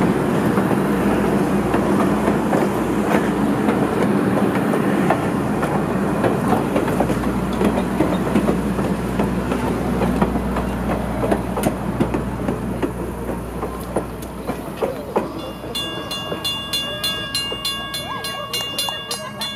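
A train rolling past, its wheels clicking over rail joints over a loud rumble that eases off after about fifteen seconds. Near the end, steady high tones at several pitches come in.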